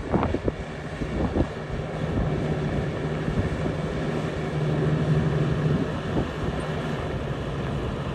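1975 Ford F750 winch truck's engine running as the truck drives slowly, a steady low drone that grows louder for a second or so about halfway through. Wind buffets the microphone in the first second or two.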